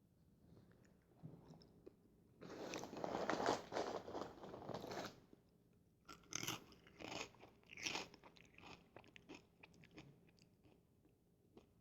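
Fritos corn chips being bitten and chewed close to the microphone. A run of dense crunching starts about two seconds in, then comes a handful of separate sharp crunches, thinning to softer chewing near the end.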